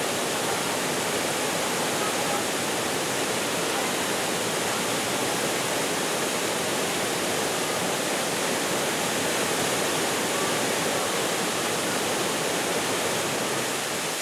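Waterfall pouring over rocks: a steady, even rush of falling water.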